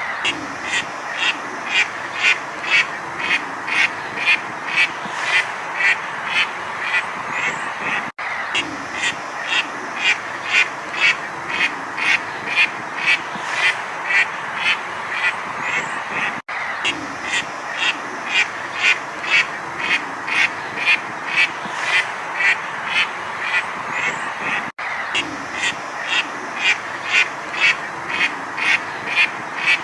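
Duck quacking in a steady, rapid run of calls, about two to three quacks a second, over a constant background hiss, with a brief break about every eight seconds.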